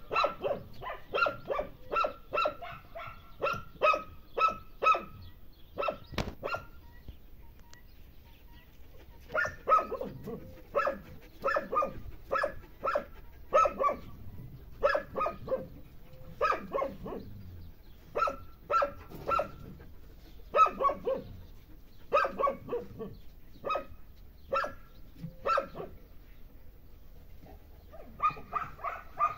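Dog barking repeatedly in short, evenly spaced barks, about one to two a second, with a pause of a few seconds about a quarter of the way in.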